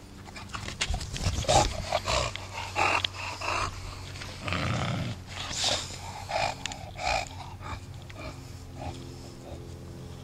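English bulldog breathing hard close to the microphone, a string of short, irregular noisy breaths and snuffles that are busiest and loudest over the first half and die away after about eight seconds.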